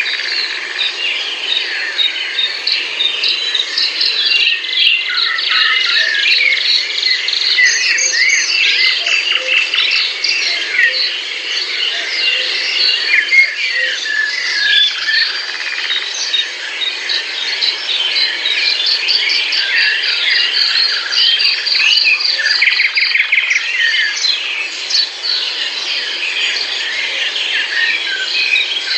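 A dense chorus of many songbirds singing at once, overlapping chirps, whistles and rapid trills, over a steady background of insects.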